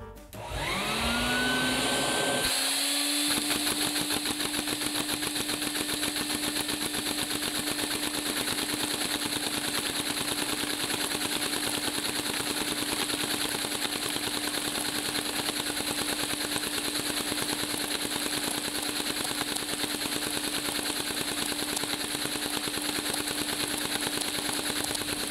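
LEGO vacuum engine with caged roller bearings running fast on suction, making a rapid, even clatter. A steady whine rises in pitch over the first two seconds as it comes up to speed, then holds. It runs smoothly and fast, a phenomenal improvement over the other versions.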